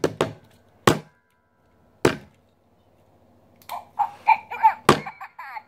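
A handful of sharp, separate taps and knocks from hands handling a plastic toy right against the microphone. Near the end comes a quick run of short, soft vocal sounds from a child.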